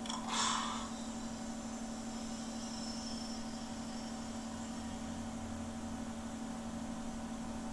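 Steady electrical hum of a film's high-tech lab ambience, with a short hiss-like burst of noise about half a second in as the vault opens.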